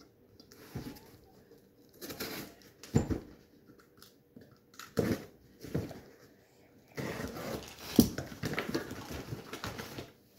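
Gloved hands slitting the packing tape on a small cardboard box with a knife and handling the box: scattered scrapes and knocks. Near the end, a few seconds of steady rustling of wrapping paper as the flaps are opened and a wrapped part is pulled out, with one sharp click in the middle of it.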